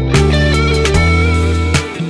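Electric guitar playing a blues lead of long held notes over a backing track with a bass line and a steady drum beat.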